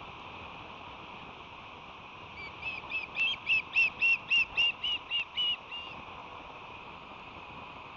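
Osprey calling: a rapid series of about a dozen short, high, whistled chirps, about four a second, climbing a little in pitch and growing louder before fading. A steady background hiss runs underneath.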